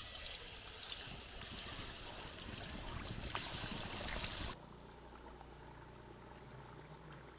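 Marinated chicken pieces sizzling as they are dropped one by one into hot oil in a wok for deep-frying: a steady hiss. It cuts off abruptly about four and a half seconds in, leaving only a faint low hum.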